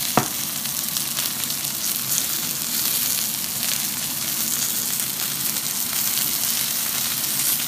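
Thick rump steak frying in hot oil in a pan, a steady high sizzling hiss. A single sharp click sounds just after the start.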